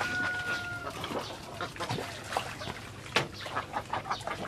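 Flock of domestic ducks quacking: a run of short, scattered calls, one louder than the rest a little past the middle.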